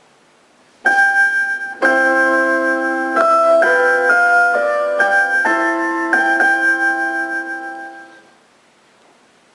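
A shortwave radio station's interval signal: a short melody of bell-like electronic keyboard notes. A single note sounds about a second in, then several notes ring together and change, dying away near the end over a faint hiss.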